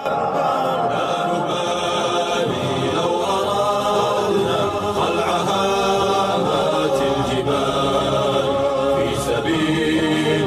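Background vocal music: a group of voices singing in chorus, starting suddenly and running steadily.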